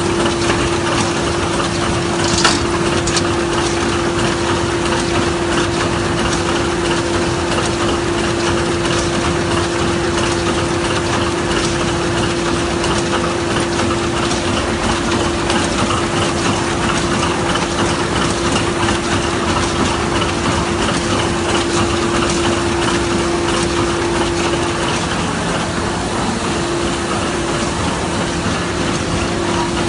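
Smyth Freccia 150 L book-sewing machine running: continuous mechanical clatter under a steady hum, with one sharp click about two and a half seconds in.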